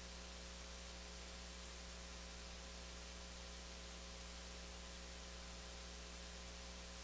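Faint steady electrical hum with a low, even hiss, and nothing else happening.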